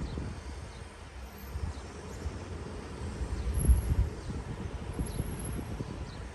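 Wind buffeting an outdoor microphone in irregular low gusts, with the strongest gust a little under four seconds in. A few faint, short, high falling chirps sound above it.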